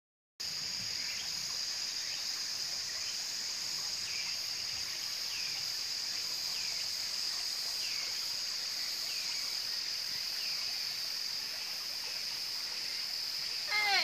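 Steady high-pitched insect chorus in subtropical forest, with a short falling call repeating about every second and a half, over the low rush of a shallow stream. Near the end, a louder falling call briefly rises above the rest.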